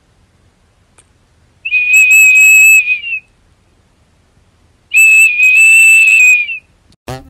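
Small plastic toy whistle blown by a golden retriever: two steady, high, shrill whistles, each about a second and a half long, a couple of seconds apart.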